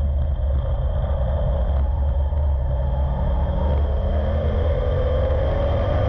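Street stock race car's V8 engine heard from inside the car, running continuously with a deep, steady rumble through a turn. The engine note climbs a little near the end.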